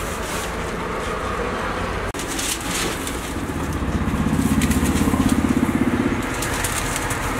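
Steady stall background noise with a pulsing engine sound that swells about four seconds in and fades by about six, and light paper rustles as a frankie roll is wrapped in a sheet of paper.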